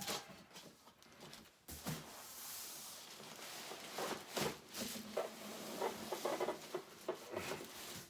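Cardboard and styrofoam packaging being handled: irregular rustling and scraping with several sharp knocks, one about two seconds in and another near the middle.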